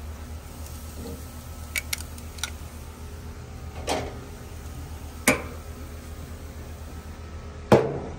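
Metal tongs clicking and knocking against a Weber gas grill's grates and frame, then the grill's lid shutting with a loud clunk near the end, over a steady low rumble.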